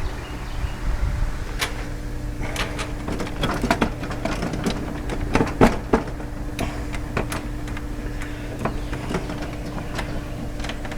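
Wooden chicken coop parts and their bolts being worked into place by hand: a string of irregular clicks, knocks and rattles, busiest in the middle, over a steady low hum.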